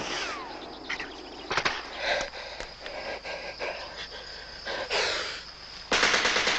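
Battle sound effects: a falling whistle at the start, then scattered single gunshots, and a loud burst of machine-gun fire about six seconds in.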